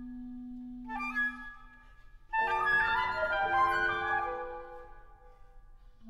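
Flute, clarinet and piano trio playing contemporary classical music. The clarinet holds a soft low note while the flute plays a short high flourish about a second in. At about two and a half seconds the piano enters with fast pedalled runs under flute and clarinet figures, then rings and fades away.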